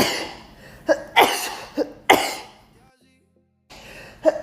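A woman sneezing in a fit, three sneezes about a second apart, each a quick 'ah' in-breath and then the explosive 'choo'. After a brief silence she draws in breath for the next sneeze near the end.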